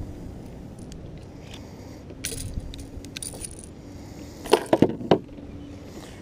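Metal fishing tackle jingling and clicking as a fish lip-grip tool on a coiled lanyard is handled while unhooking a bass, with a quick run of sharp clicks about four and a half seconds in.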